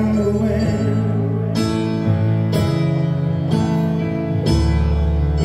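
Live dance band playing a slow ballad on keyboard and electric bass, with a new chord struck about once a second over a steady low bass line.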